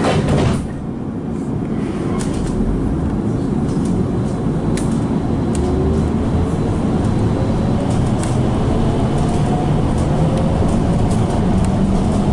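Cabin ride noise of a Hess Swisstrolley 3 trolleybus under way: steady low rumble with the electric traction motor's whine climbing in pitch as the bus gathers speed, and scattered light clicks and rattles. A brief louder rush of noise at the start drops away within the first second.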